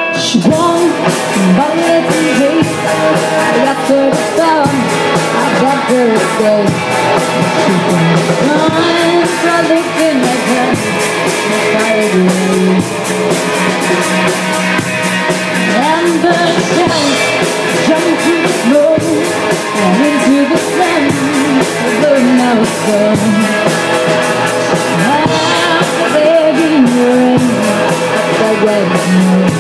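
Live rock band playing loud: a woman sings the lead over electric guitar, bass and a drum kit with steady cymbal strikes. The full band comes in at the start.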